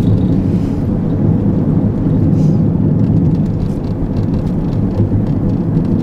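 Steady low road noise of a vehicle driving on wet pavement, tyre and engine drone heard from inside the cabin.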